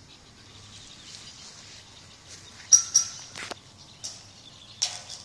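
A few sharp clicks: two close together about three seconds in, another just after, and a rasping one near the end, over a faint high outdoor hiss.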